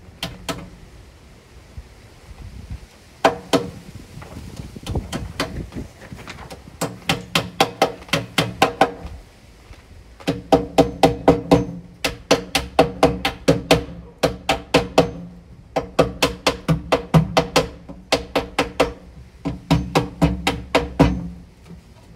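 Hammer driving nails to fix a sash cord to the side of a timber window sash, in runs of quick, ringing blows about four to five a second with short pauses between.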